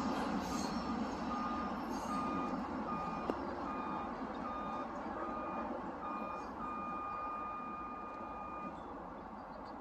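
Electronic warning beeper sounding short beeps about twice a second, then one steady tone for about two seconds that cuts off near the end, over the steady rumble of a passing train.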